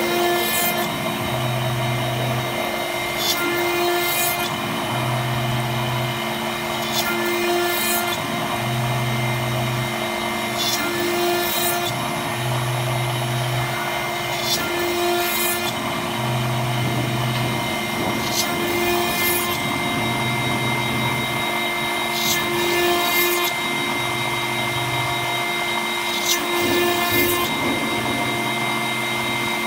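CNC router spindle with a small end mill cutting a brass plate under coolant: a steady high whine from the spindle, with a cycle that repeats about every three and a half seconds as a low buzz comes and goes and short hissy bursts sound in the highs.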